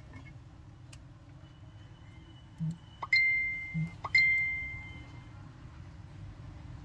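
Two bright metallic pings about a second apart, each ringing out and fading within about a second, with a soft knock just before each.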